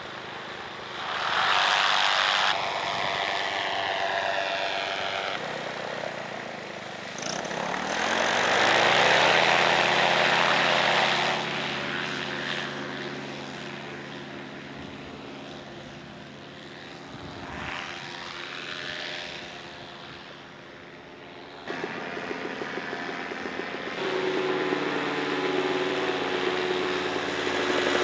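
Paramotor engines with their propellers, throttled up for takeoff: the pitch sweeps up about eight seconds in, then holds at a steady high-power drone. The sound shifts suddenly several times as different launches are cut together.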